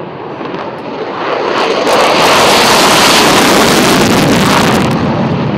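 F-16 fighter jet's engine on afterburner during its takeoff run and lift-off. A loud jet roar grows louder over the first two seconds, holds, then eases a little near the end.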